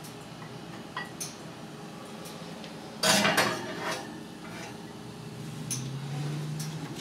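A glass baking dish with engine parts in it is set onto a metal oven rack. There is a clink and a short clatter about three seconds in, over a steady background, with a low hum near the end.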